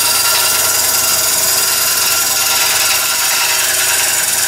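Wood lathe running while a high-speed steel turning tool takes very thin passes inside a spinning Bradford pear bowl, peeling off small ribbons of shavings: a steady cutting hiss over the machine's hum.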